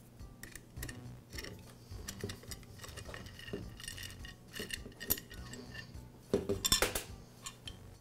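Light metallic clicks and scrapes as the metal base plate of a Makita jigsaw is worked loose and pulled off, with a louder run of clinks about six seconds in as the parts meet the metal tabletop.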